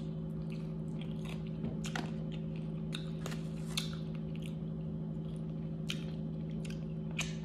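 Close-up mouth sounds of someone chewing and biting into chicken wings: irregular, scattered crunchy clicks. A steady low hum runs underneath.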